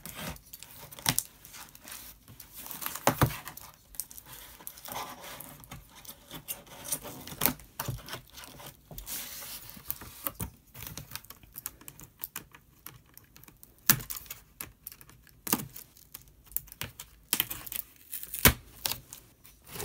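Cardboard shipping box being opened by hand: tape and cardboard tearing and scraping as the flaps are cut and pulled back, with scattered sharp clicks and knocks.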